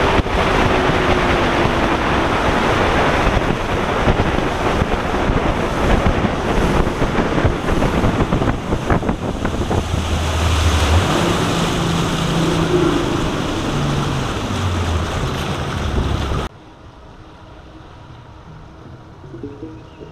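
Heavy wind noise on the microphone with rushing water, as from a boat under way on the lake; it cuts off suddenly about 16 seconds in, leaving a much quieter background.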